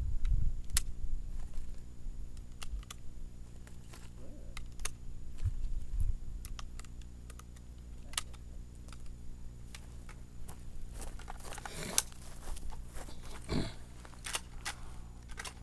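Low steady rumble with scattered small clicks and handling noises, a few sharper ones near the end; no shot is fired.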